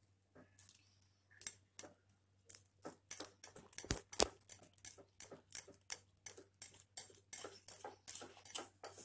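Wire whisk clicking against the side of a glass bowl as it beats a wet wheat-flour batter. A few scattered clicks at first, then from about three seconds in a steady rhythm of roughly three clicks a second.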